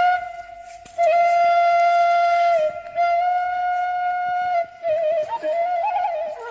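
Background music led by a flute playing slow, long held notes with small turns. The melody breaks off briefly just before a second in, then moves through quicker notes near the end.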